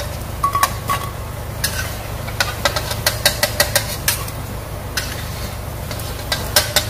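Metal spatula scraping and clinking irregularly against a stainless steel wok as fried dough balls are scooped out of the oil to drain, over a steady low hum.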